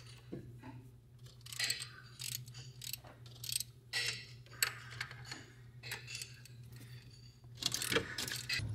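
Hand ratchet wrench clicking in irregular runs, with metallic clinks and rattles, as the power steering pump's 13 mm mounting bolts are backed out; a steady low hum runs underneath.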